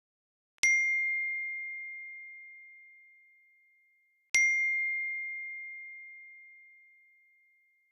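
Two clear bell-like dings about four seconds apart. Each is a single high ringing tone that starts sharply and fades away over about three and a half seconds.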